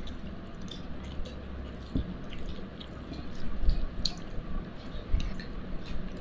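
Eating with the fingers: soft squishing of rice and chicken worked by hand on a plate, small scattered clicks, and chewing, over a steady low hum.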